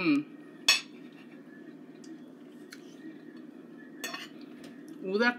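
Metal forks clinking against dinner plates while eating: a sharp clink about a second in and another near four seconds, over a steady low hum.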